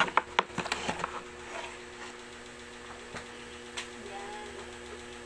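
A blender being moved and set down: several sharp knocks and clicks in the first second, then a steady electrical hum with an odd single click; the blender motor is not running.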